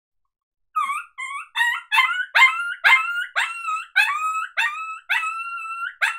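Mouth diaphragm predator call blown to imitate a coyote pup in distress: a string of sharp, high-pitched yelping cries, about two a second, starting about a second in. Each cry jumps up quickly, then holds its note, and the later cries are drawn out longer.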